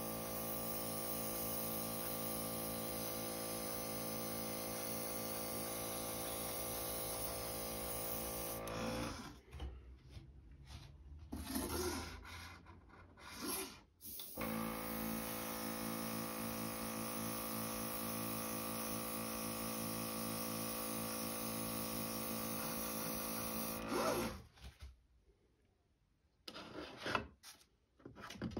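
Small airbrush compressor running with a steady hum while the Fengda FE-136K airbrush hisses as it sprays paint. The hum and hiss stop about nine seconds in for a few seconds, with a couple of short bursts, then run again and cut off near the 24-second mark. This is followed by a few light knocks as the plastic model is handled.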